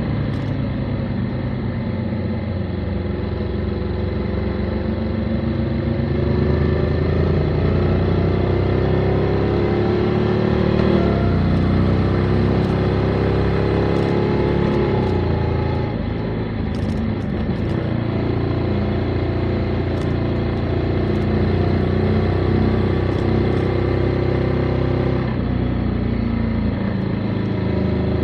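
Motorcycle engine running while riding. The revs climb and drop back sharply twice, about a third of the way in and again a little past halfway, then hold steady.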